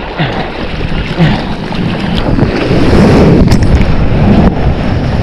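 Ocean surf splashing and rushing around a waterproof action camera held at the water's surface, with wind buffeting the microphone. It gets louder a little past halfway.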